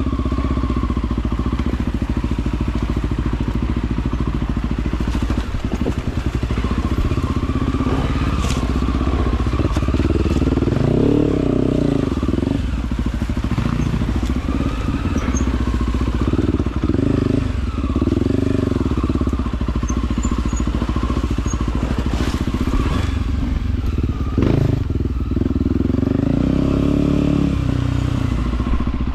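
Off-road trail motorcycle engine running under load, its revs rising and falling again and again as it rides over rough ground. A couple of sharp knocks come through, one about a third of the way in and another near the end.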